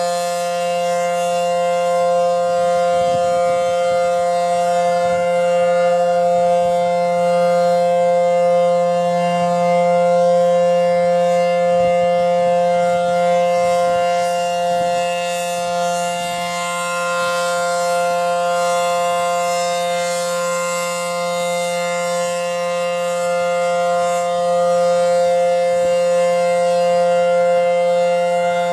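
ACA Howler civil defense siren sounding a loud, steady tone with many overtones as its horn rotates, the level slowly swelling and dipping as the horn turns.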